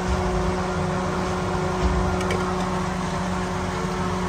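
Kitchen range hood fan running with a steady hum, with a couple of soft low knocks from ladling soup into bowls.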